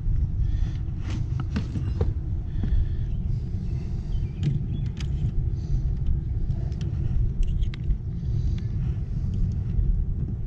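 A steady low rumble with scattered light clicks and taps over it.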